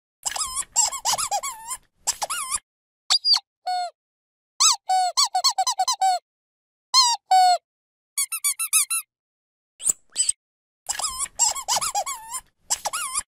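Dog squeaky toy squeezed over and over in bursts of rapid squeaks that wobble in pitch, some with a raspy hiss of air, broken by short silent gaps.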